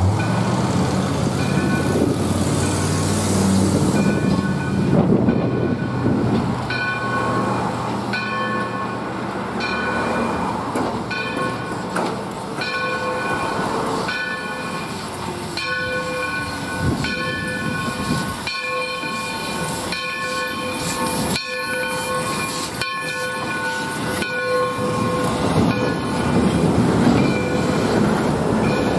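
Steam locomotive approaching and passing close by, with a ringing pitched signal that restrikes about once a second through most of the pass. Near the end the passenger coaches roll past on the rails.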